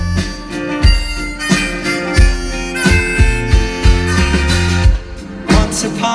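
Live band playing an instrumental break of a folk-pop song: a steady drum beat of about three hits every two seconds, under a pitched lead melody and guitar.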